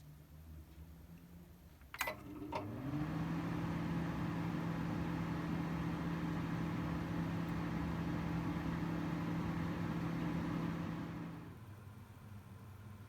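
Two clicks, then a small electric motor in a kitchen appliance spins up and runs with a steady hum for about nine seconds before winding down.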